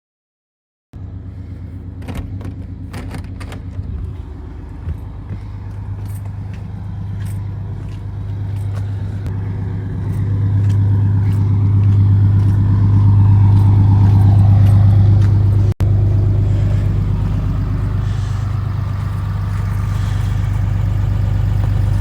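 A motor vehicle running: a steady low engine and road hum that grows louder about halfway through, with a few light clicks and knocks in the first few seconds.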